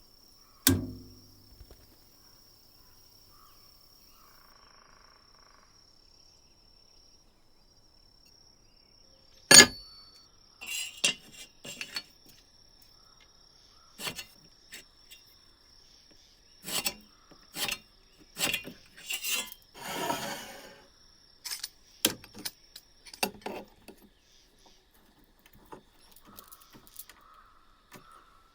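Workshop handling noises from a metal tool: a sharp knock with a short low ring about a second in, a louder knock after about nine seconds, then a run of clicks, taps and one longer scrape, with a faint steady high whine underneath for most of the time.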